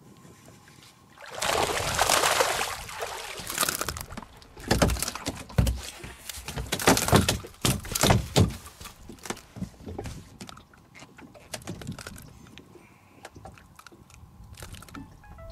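A hooked largemouth bass splashing at the surface as it is pulled from the water, then several sharp thumps as the fish flops on the boat's deck.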